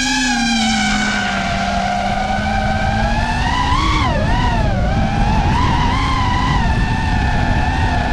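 FPV quadcopter's brushless motors whining under throttle. The pitch jumps up sharply at the start, then dips and climbs again a few times around four to five seconds in as the throttle changes, over a steady low rushing noise.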